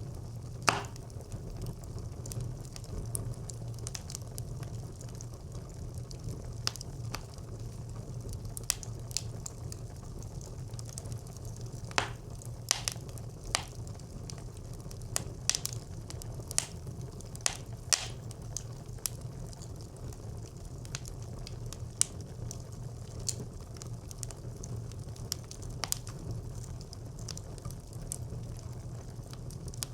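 Wood fire burning in a brick clay stove: a steady low rumble of flames with irregular sharp crackles and pops from the burning wood.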